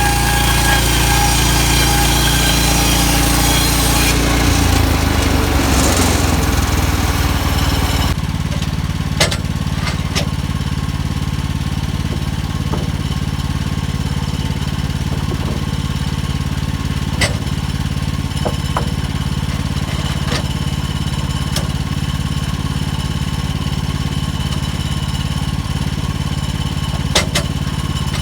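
Portable bandsaw sawmill's gas engine running under load as the blade cuts through a stack of pine boards, edging them. The cut ends sharply about eight seconds in, and the engine then runs on steadily with a few sharp clicks.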